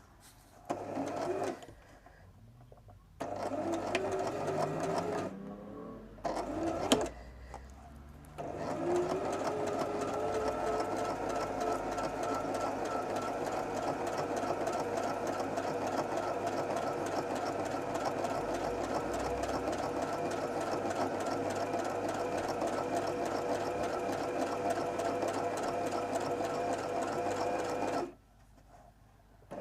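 Brother LS14s sewing machine stitching: a short burst, two more short runs, then one long steady run of about twenty seconds that stops suddenly near the end. The motor's whine rises in pitch as each run starts.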